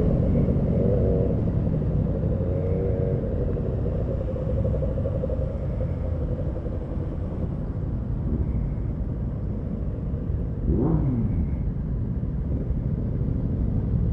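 Motorcycle engine running in a group ride through city traffic, a steady low rumble; about eleven seconds in, a quick rev whose pitch drops back down.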